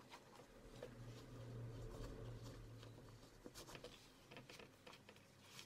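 Near silence: faint room tone with a low hum and small scattered clicks and rustles of handling.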